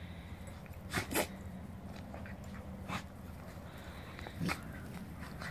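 Two dogs play-fighting, giving a few short sharp barks. The loudest two come close together about a second in.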